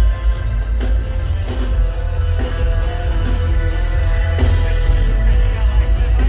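A live reggae band playing, with electric guitars, keyboards and drum kit over a very heavy bass line.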